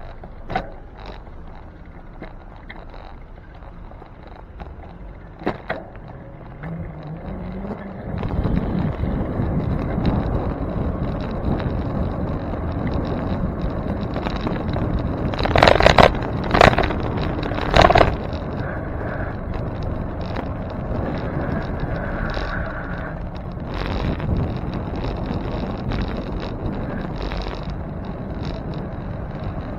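Wind and road noise of a bicycle rolling along a city street, heard from a bike-mounted camera, growing louder about a quarter of the way in. Three loud, sharp knocks come close together near the middle.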